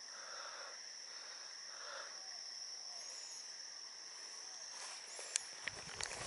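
Steady high-pitched drone of insects in garden vegetation, with a few faint short chirps. Several sharp clicks come near the end.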